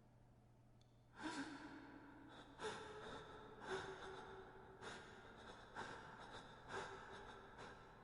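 Faint, echoing human sighs and sobbing breaths, about seven in a row at roughly one a second, each with a brief moaning pitch.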